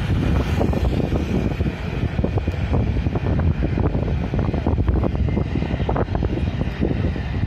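Strong wind buffeting the microphone in uneven gusts over a steady low rumble.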